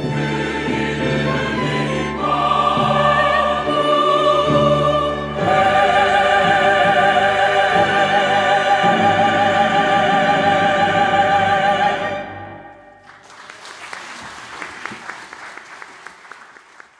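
Large church choir with strings and piano singing the closing chords of an anthem, the final chord held with vibrato and cut off about twelve seconds in. The congregation then applauds, the clapping fading away near the end.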